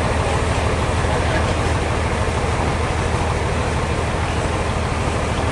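Sawmill machinery running steadily, a constant low drone with dense mechanical noise over it.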